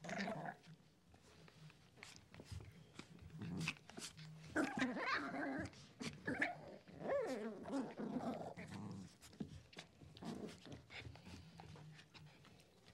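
A dog making a run of pitched vocal sounds that bend up and down, most of them in the middle, one sliding down in pitch. Short clicks are scattered throughout.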